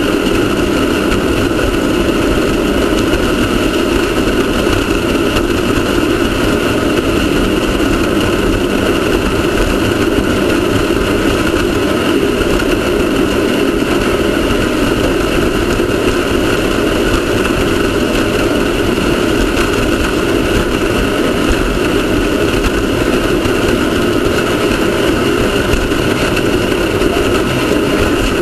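Off-road race car's engine running at a steady, unchanging pitch, mixed with a continuous rushing noise.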